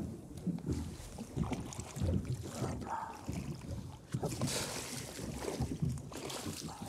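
Water slapping and sloshing against the side of an inflatable boat, with wind on the microphone. About four seconds in there is a brief splashing rush as a sea bass is netted and the landing net comes out of the water.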